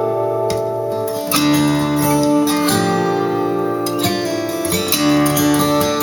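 Instrumental acoustic guitar music played through a pair of Bowers & Wilkins 604 S3 floor-standing speakers: strummed and picked chords with long held notes, without vocals.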